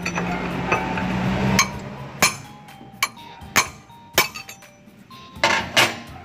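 Large steel open-end wrench clinking against the hydraulic hose fittings of an excavator swing motor as the fittings are loosened: about half a dozen sharp metallic clinks, one or two a second, with a low hum in the first second and a half.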